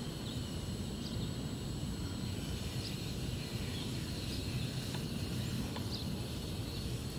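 Outdoor ambience: a steady low rumble of wind on the microphone, with a faint short bird chirp every second or two.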